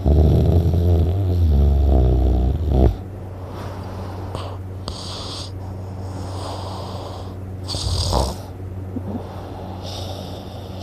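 A man snoring loudly in his sleep. A long, rattling snore fills the first three seconds, then come quieter noisy breaths, and a shorter snore follows about eight seconds in.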